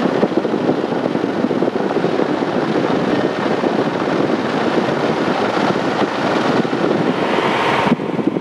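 Piper Cherokee Six's single piston engine and propeller running at taxi power, heard from inside the cabin as a loud, steady noise. Near the end the sound abruptly turns duller.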